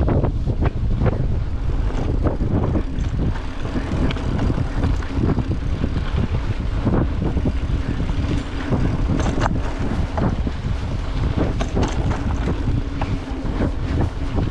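Wind buffeting the microphone in a steady rush, over a low rumble with many scattered knocks and rattles, as from a camera riding fast downhill.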